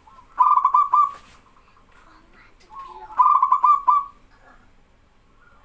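Male zebra dove (perkutut) cooing: two song phrases of quick pulsed coos, each about a second long, the second starting about two seconds after the first.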